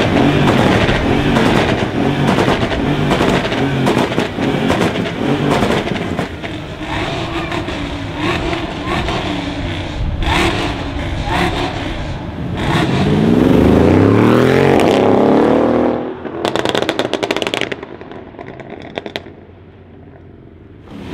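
Tuned Mercedes CLS63 AMG BiTurbo 5.5-litre twin-turbo V8, remapped for pops and crackles, running with a rapid string of exhaust crackles and bangs. Then it accelerates hard, its pitch rising for about three seconds before cutting off suddenly, followed by another burst of crackles and pops on the overrun.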